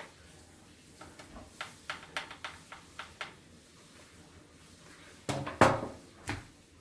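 Small clicks and taps of a Phillips screwdriver tightening the hard drive's mounting screws in a DVR, a quick run of them for about two seconds, then a few louder knocks of handled metal near the end.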